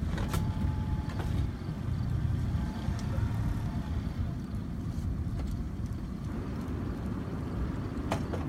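Steady low rumble of a fishing boat on the water, with a sharp click just after the start and another near the end.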